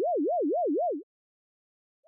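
Electronic warble tone from a hearing test, its pitch swinging up and down about five times a second, cutting off about a second in.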